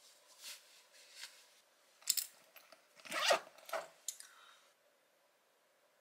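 Clothing rustling as a blazer is settled on and adjusted: a handful of short brushing, scraping strokes, the loudest about three seconds in, stopping a little before five seconds.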